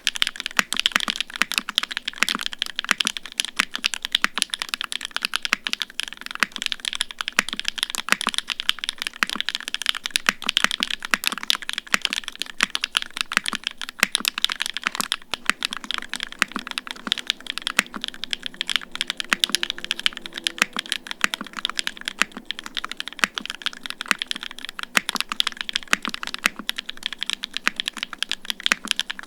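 Fast, continuous typing on a Singa Unikorn 60 custom mechanical keyboard with hand-lubed SW x Gateron Onyx linear switches (UHMWPE stems, nylon housings) on an FR4 plate with no foam, under GMK keycaps. The result is a steady stream of quick keystroke clacks with no let-up.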